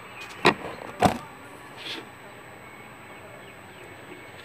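Handheld hot air gun blowing steadily while heating the phone's glued display to soften the adhesive, with two sharp knocks about half a second and a second in.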